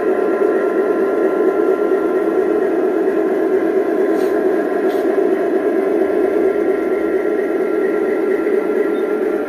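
Large-scale Aristocraft model train running past: the locomotives' motors and gearing whine and hum steadily as the wheels roll on the track. Two faint clicks come about four and five seconds in.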